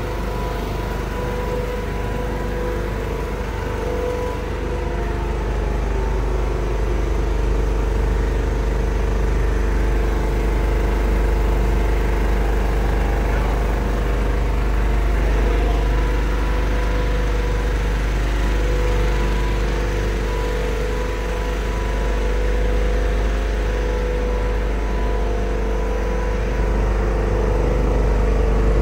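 Richpeace multi-needle high-speed quilting machine running, a steady mechanical din with a deep low hum and a constant whine.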